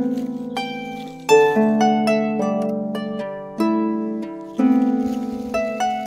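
Dusty Strings Ravenna 26 lever harp playing a traditional melody over bass notes. Each plucked note or chord rings and fades away, with fresh chords struck every second or two.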